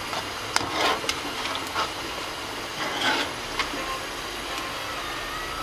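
Tofu pieces deep-frying in hot oil in a wok, sizzling steadily. A wire spider strainer clicks and scrapes against the wok a few times, with short louder rushes of sizzle about a second in and again around three seconds in as pieces are stirred and lifted.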